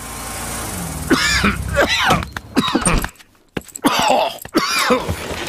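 A sick cartoon bear character groaning and coughing in several short fits, the sounds of someone ill with a bad cough.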